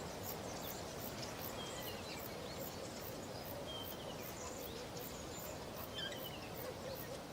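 Quiet outdoor ambience: a steady hiss of background noise with a few faint, short bird chirps scattered through it.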